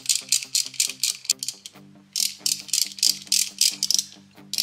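Hand ratchet with a ball-end socket clicking in quick runs, about five or six clicks a second with two short pauses, as it runs down the lifter block bolts on a Harley V-twin.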